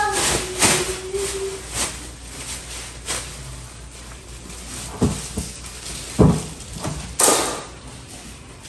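A plastic bin liner rustling and being shaken out as it is fitted into a trash can, with a few scattered knocks and thumps.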